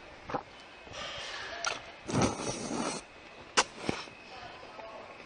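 A person slurping udon noodles, with one loud slurp about two seconds in lasting under a second, quieter sucking and chewing around it, and a few sharp clicks.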